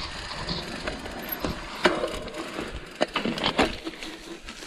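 Mountain bike rolling down a rough dirt singletrack. The bike rattles and knocks over bumps with a string of sharp clacks, loudest about two seconds in and again past the three-second mark, and the rear hub's freewheel ratchet clicks while coasting.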